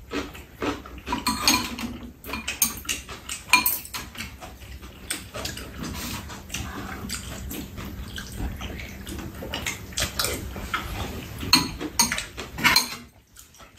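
Two people eating soup and side dishes: spoons and chopsticks clicking against bowls, with eating noises in between.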